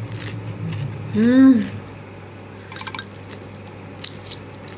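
Someone eating, with wet chewing and smacking mouth sounds, and a short voiced exclamation just over a second in.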